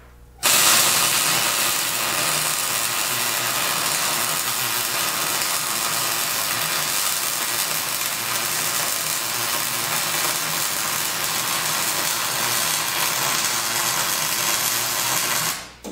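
MIG welding arc running on a steel snowplow blade: one continuous, steady weld sizzle that starts abruptly about half a second in and stops just before the end.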